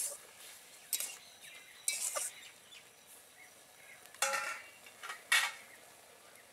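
Metal spatula scraping and clinking against a metal kadai while stirring boiled spinach, in separate strokes about a second apart, with two louder scrapes in the second half.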